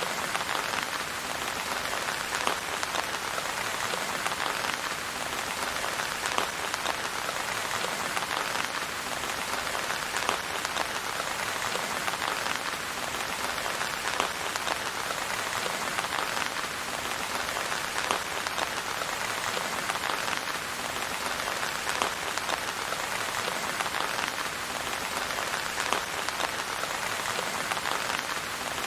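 Steady rain falling on a surface, a dense even hiss with many separate drop ticks.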